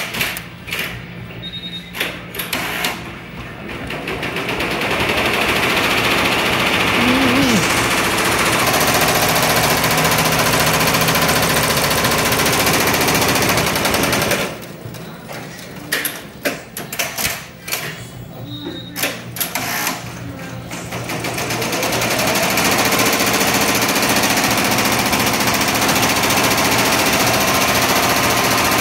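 Barudan multi-head embroidery machine stitching: it winds up to speed and runs at a fast, steady stitching rate, stops for several seconds of scattered clicks and knocks, then winds up again and runs steadily to the end. A few clicks and knocks come at first, before it starts.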